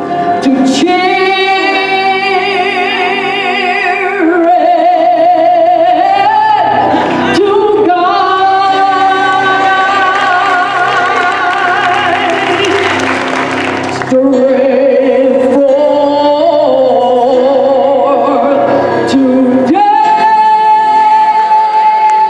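Live gospel choir singing with a female soloist leading at the microphone, backed by a band with bass guitar and drums; long held notes with a wavering vibrato.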